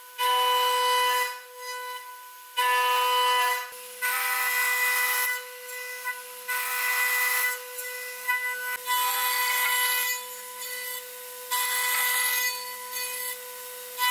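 Horizontal router spindle of a Lee Hyun multi-purpose woodworking machine running with a steady high whine while its bit cuts a mortise slot into the end of a hardwood board. The cutting comes in about eight passes, each a loud burst of about a second with quieter stretches of just the spindle between them.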